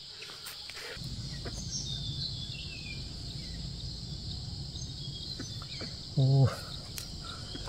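Steady high-pitched insect chorus over a low rumble, with a few faint descending bird chirps around two to three seconds in and one short, low voice sound about six seconds in.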